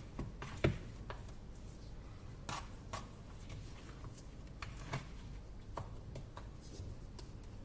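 Scattered light scrapes and taps of a utensil against a container as melted chocolate is piled over a phone, with one sharper knock about a second in.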